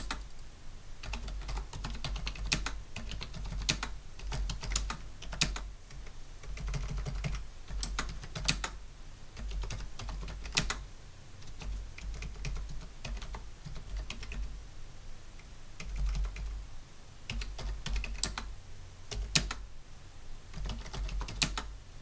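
Typing on a Logitech K400 non-mechanical keyboard: an uneven run of soft key clicks, several a second, with a few louder clacks scattered through.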